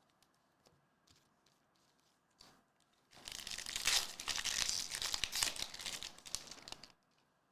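A foil trading-card pack wrapper being torn open and crinkled, about four seconds of crackling tearing that starts about three seconds in.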